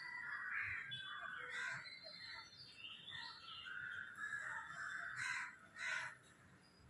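Birds calling outdoors, a steady run of irregular calls, with two loud, harsh calls near the end.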